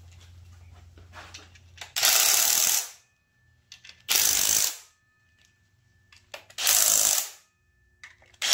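Kobalt cordless impact driver hammering bolts down into an engine block: three short bursts of under a second each, a couple of seconds apart, and a fourth starting near the end.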